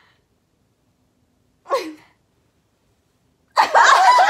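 Dead silence, broken a little under two seconds in by one short vocal sound that falls steeply in pitch, like a gasp or an exaggerated exclamation. Near the end, several voices come in loudly, talking and laughing.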